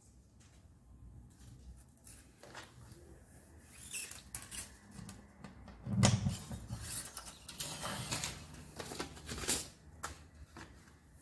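Irregular clicks, scrapes and rustling from hands and tools at work, with a low thump about six seconds in.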